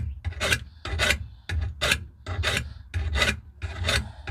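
Hand file being drawn across the steel edge of a rotary lawn mower blade, rasping in steady strokes about twice a second to sharpen it and take off the burred lip.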